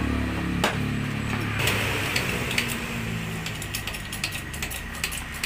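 Irregular metallic clicks and rattles from a hydraulic bottle jack being worked by hand while lying on its side against a steel press frame.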